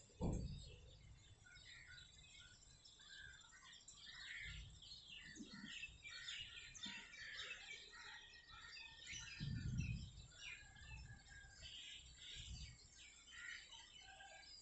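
Many small birds chirping busily, with a sharp low thump just after the start and low rumbles swelling twice near the middle.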